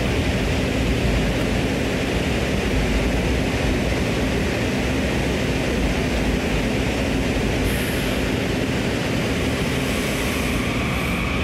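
Washington Metro (WMATA) subway train running on the track, a steady rumble. A faint high hiss joins about eight seconds in.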